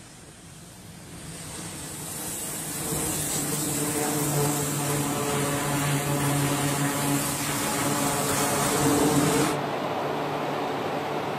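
Twin turboprop engines of a C-2A Greyhound carrier aircraft, growing louder over the first few seconds into a steady propeller drone with a hum of several even tones and a high hiss. Near the end the sound changes abruptly to another Greyhound's turboprops running, duller and with less hiss.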